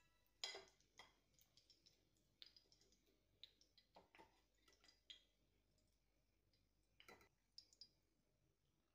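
Faint, scattered clicks and light clinks of cookware being handled on a gas stove: pots, a metal bowl and a serving spoon knocking together at irregular intervals.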